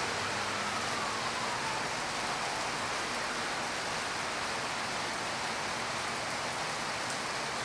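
Steady, even rain-like hiss, with a faint police siren wail sliding down in pitch and fading out in the first two or three seconds.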